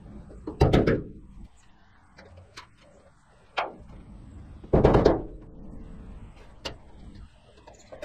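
A small hammer striking a punch to drive a hood seal's ribbed push-in clips up into the underside of a steel truck hood: a quick cluster of knocks about a second in, a single knock midway, and a second loud cluster about five seconds in.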